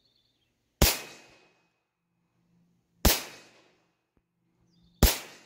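Browning Buck Mark .22 Long Rifle semi-automatic pistol firing three single shots about two seconds apart, each a sharp crack with a short echo.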